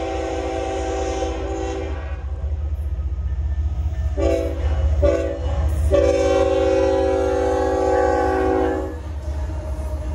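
Freight locomotive air horn sounded for a grade crossing, from a GE ES44AH leading a CSX train. A long blast ends about two seconds in, two short blasts follow about two seconds later, and then a long blast of about three seconds, all over the low rumble of the approaching train.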